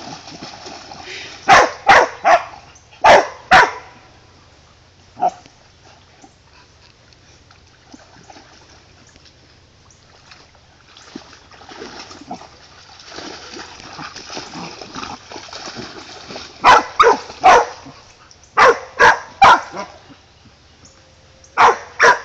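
Dogs play-fighting in shallow pond water: loud barks in quick bursts of two to four, with water splashing and sloshing between them.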